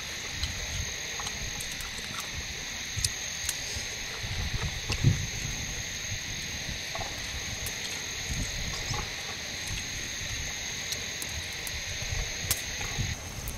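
Steady high-pitched insect chorus, with a second, lower layer that drops away near the end. A few soft low rumbles and faint clicks sit under it.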